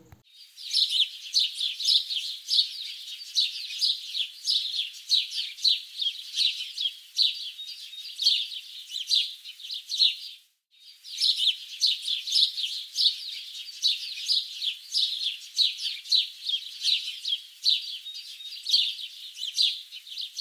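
A chorus of small songbirds chirping and twittering rapidly, thin and high with no low sound under it. It stops for about half a second halfway through, then the same kind of chirping starts again.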